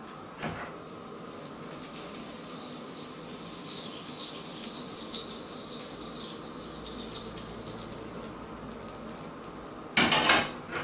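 Thin pancake batter sizzling in a hot buttered pan as it is poured in and swirled around, a steady hiss with faint crackle. Near the end, a short loud clatter as the metal ladle goes back into the batter bowl.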